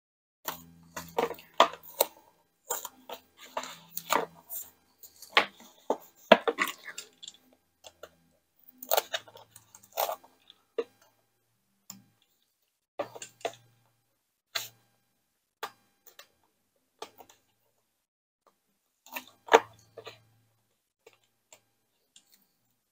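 Cardstock and double-sided tape being handled on a craft table: irregular rustles, crinkles and taps. They come thickly at first and thin out after about ten seconds, with one sharper click near the end.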